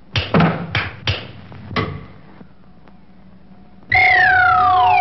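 Cartoon soundtrack sound effects: a cluster of sharp knocks and short noises in the first two seconds, then a quiet gap. About four seconds in comes a loud, long tone sliding down in pitch over a steady held note.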